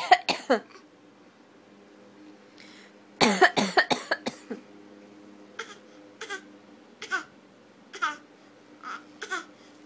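A baby coughing on request, imitating an adult's cough. There is a quick run of several small coughs a few seconds in, then single short coughs about once a second toward the end.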